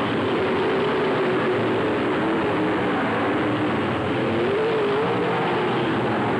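Dirt late model race cars' V8 engines running at racing speed around the dirt oval: a continuous loud drone whose pitch wavers up and down as the cars go by.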